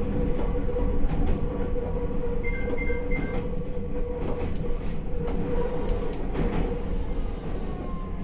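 Meitetsu 9500 series electric train running, heard from behind the driver's cab: a steady rumble of wheels on rail with a constant hum and scattered rail-joint clicks. About two and a half seconds in, three short electronic beeps sound.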